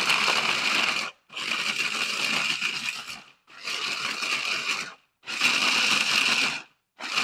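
Mini Cuisinart food processor pulsed in runs of about a second and a half with short breaks between, its motor whining as the blade chops cooked tempeh bacon into crumbs.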